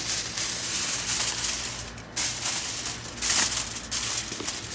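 Aluminium foil crinkling and rustling as it is folded around a smoked brisket, in uneven bursts with a short pause about two seconds in, mixed with clothing rubbing against the phone's microphone.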